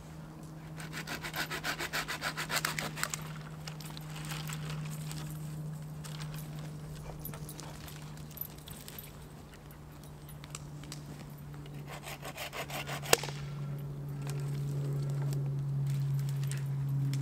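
Hand saw rasping through a branch in two bouts of quick strokes, the second ending in a single sharp crack of wood. Under it a light aircraft's engine drones steadily, getting louder near the end.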